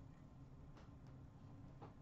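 Near silence: room tone with a low hum and a few faint ticks.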